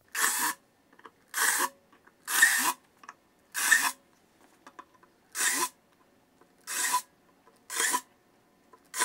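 Cordless drill with a 13/64 bit boring truck holes through a maple skateboard deck: eight short raspy bursts of the bit cutting into the wood, about a second apart, with near silence between them.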